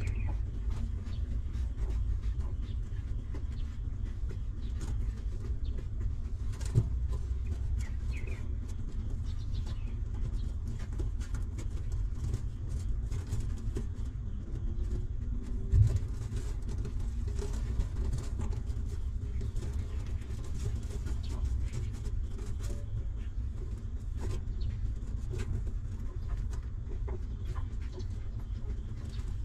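Newborn puppies suckling and shifting against their nursing mother dog: faint small clicks and a few short high squeaks over a steady low rumble, with two louder thumps, about seven and sixteen seconds in.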